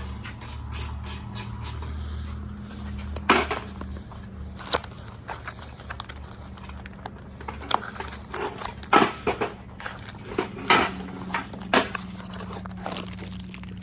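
Hand tools clicking and knocking irregularly against truck brake parts, with a dozen or so sharp metallic strikes over a steady low hum.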